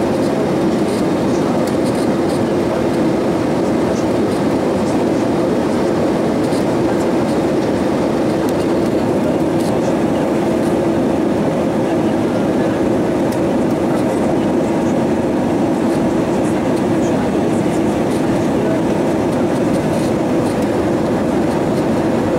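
Steady drone of engine and airflow noise inside the cabin of an Airbus A320-232 with IAE V2500 engines, even and unchanging throughout.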